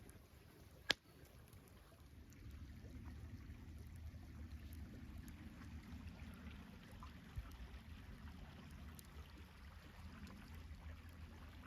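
Water heating over a campfire: a steady low rumble that builds a couple of seconds in, with a sharp snap about a second in and scattered faint crackles.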